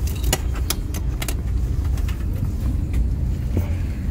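Steady low rumble of a parked airliner's cabin ventilation, with a few sharp light clicks and metallic rattles in the first second and a half as the seatbelt buckle and seat are handled.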